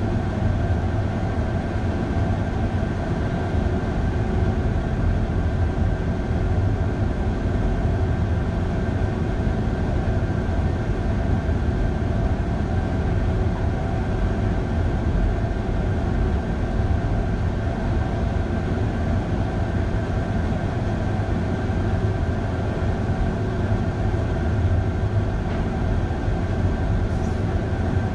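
Electric train climbing steadily through a rock tunnel and snow shed, a continuous low rumble with a steady hum from the running gear and traction equipment.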